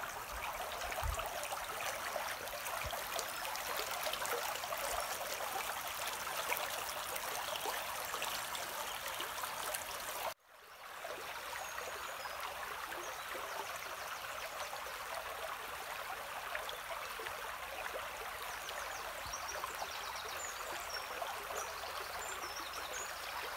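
Small woodland brook bubbling, a steady rush of running water. It breaks off for an instant about ten seconds in and carries on the same.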